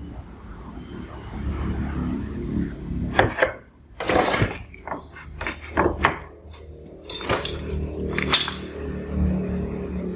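A steel ruler and a steel square handled on a sheet of cardboard: several sharp metal clicks and clinks, a longer scrape about four seconds in, and a marker drawn along the ruler, over a low steady hum.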